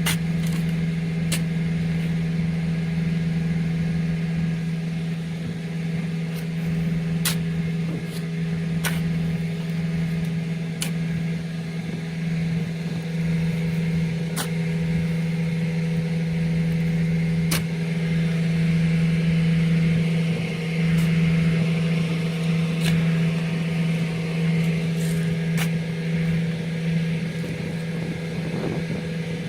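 Septic pumper truck's engine and vacuum pump running at a steady idle, a constant hum, with scattered sharp clicks now and then.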